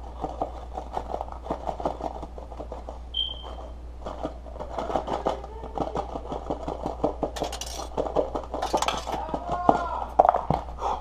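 Handling noise from a plastic ketchup bottle and a baking soda box: many small clicks and clinks as baking soda is spooned or poured into the open bottle, with a couple of brief rustling bursts and short squeaks near the end.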